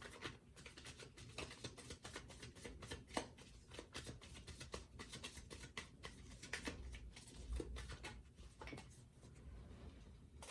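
Tarot deck being shuffled by hand: a faint, dense run of quick card clicks and riffles.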